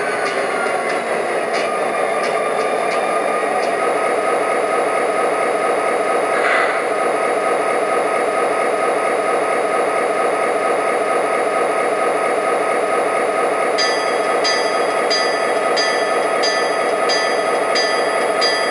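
Proto-Sound 2.0 speaker in an MTH O-gauge CSX SD35 model locomotive playing a steady diesel engine drone. About five seconds before the end a locomotive bell starts ringing, about one and a half strokes a second, as the model starts to move.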